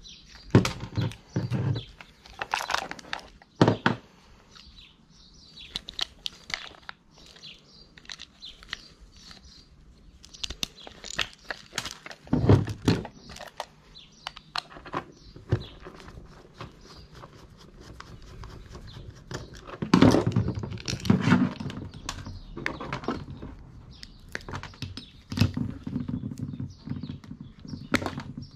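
Hand tools and small metal parts clicking, knocking and clattering at irregular intervals as a sewing machine's motor is taken apart. A louder cluster of knocks comes about twenty seconds in.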